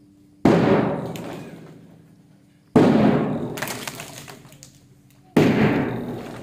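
Large bass drum struck with a mallet three times, about two and a half seconds apart, each beat ringing out slowly before the next. The beats keep time for a children's group drill, cueing each change of arm position.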